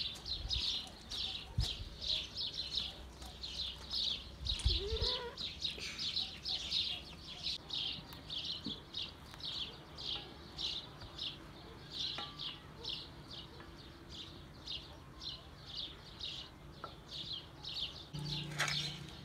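Small creature chirping: short, high chirps repeated evenly, about two to three a second, over a faint low rumble.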